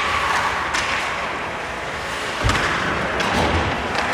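Ice hockey play: sharp clacks of sticks and puck at intervals, and a heavy thud about two and a half seconds in, over steady rink noise.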